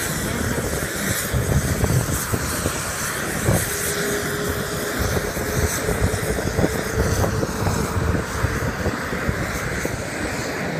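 Steady airport ramp noise of engines and ground vehicles running, with an uneven low rumble. A faint steady whine comes in about four seconds in and holds for several seconds.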